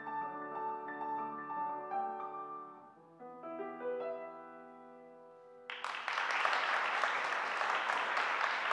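Grand piano playing the closing bars of a piece and ending on a held final chord that fades. About six seconds in, the audience breaks into applause.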